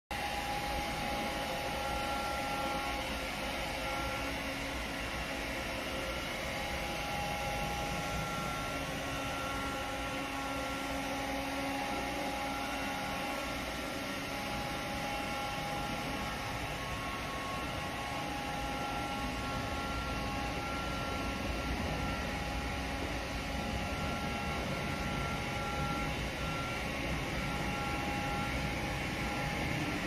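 iLife V3s Max robot vacuum running on a hard floor: a steady motor-and-fan hum with a couple of thin whining tones that drop in and out.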